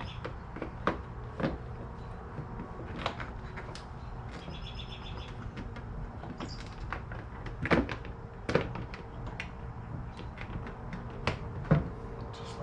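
Scattered clicks and knocks of a Harley-Davidson's side cover being handled and pressed back into place on the bike, with a few sharper knocks past the middle and near the end.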